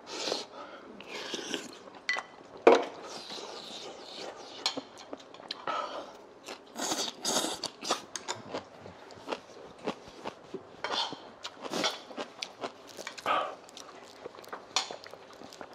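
Eating at a table: scattered clinks and knocks of chopsticks and spoons against bowls and dishes, with chewing.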